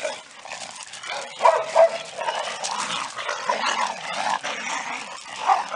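Several dogs play-fighting, barking and yipping in short, irregular bursts.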